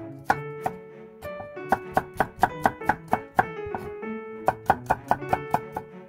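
Kitchen knife slicing garlic cloves on a wooden cutting board: sharp taps of the blade on the board, in quick runs of several a second, over instrumental background music.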